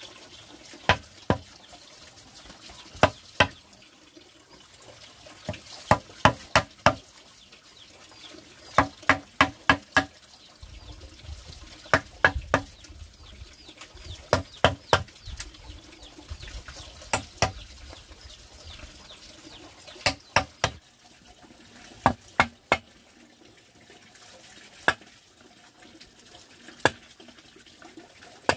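Wooden block used as a mallet striking a chisel into a bamboo tube to cut a hole: sharp knocks, singly or in quick runs of up to five, with pauses between.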